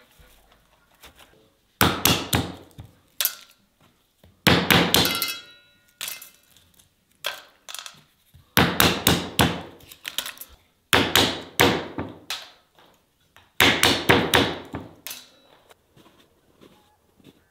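Hard knocking impacts in bursts of several quick strikes, a burst every second or two. One burst near the middle has a short ringing after it.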